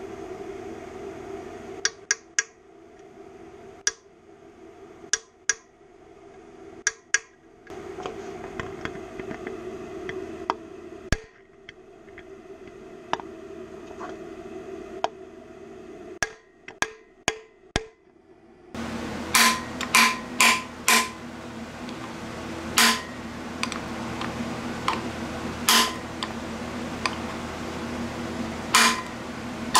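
Hammer tapping a bearing driver to seat a camshaft bearing in a Cummins 4BT engine block: sharp metal-on-metal taps, singly and in quick runs. The taps are faint at first and louder and ringing from about two-thirds of the way in.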